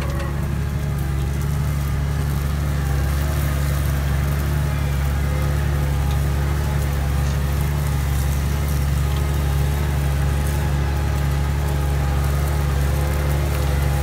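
Tractor diesel engine running steadily under load while pulling a mounted reversible plough, heard from inside the cab as a constant low drone.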